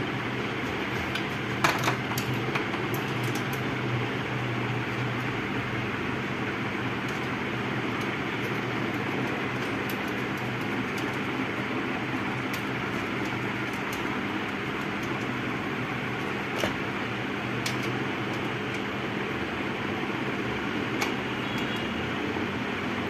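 Steady background drone with a low hum, broken by a few sharp clicks and taps of metal monitor brackets and tools being handled; the loudest clicks come in a quick cluster about two seconds in.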